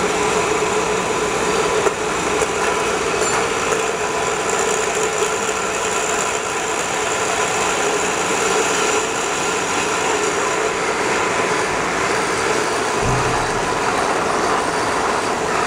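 Can depalletizer and conveyor machinery running, moving empty aluminium cans: a steady, dense mechanical noise with a constant hum. There is a brief low thump about thirteen seconds in.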